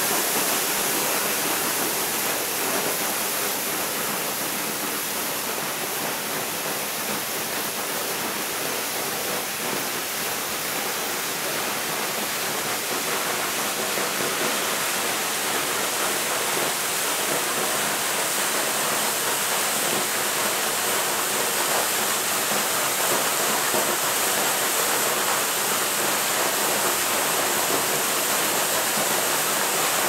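Small waterfall pouring into a rocky pool: a steady rush and splash of falling water, a little louder in the second half.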